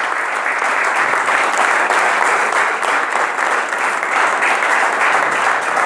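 A roomful of people applauding, many hands clapping in a steady, dense patter.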